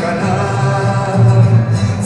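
A song: a voice sings held notes that glide between pitches over steady instrumental accompaniment.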